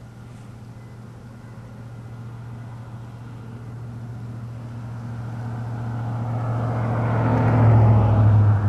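A vehicle's engine drawing steadily closer, its low hum growing louder until it passes closest near the end.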